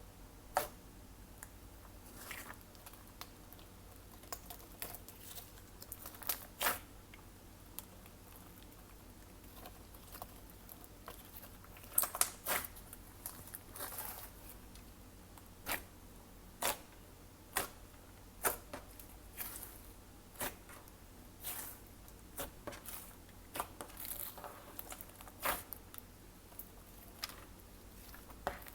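Glossy slime being worked by hand, squished and pulled, giving irregular sharp clicks and crackling pops, loudest in a cluster about twelve seconds in.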